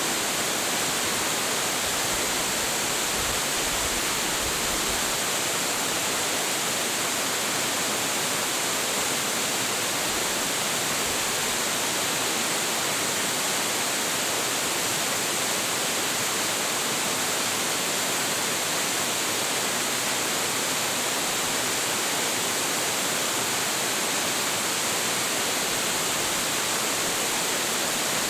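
A tall, high-volume waterfall, about 25.7 m high, plunging steadily: a constant, dense rush of falling water with no breaks or changes.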